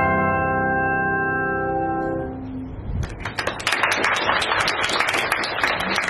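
Handbell ensemble's last chord ringing, several bells sounding together and holding steady, then stopping about two and a half seconds in. Audience applause starts about half a second later and carries on.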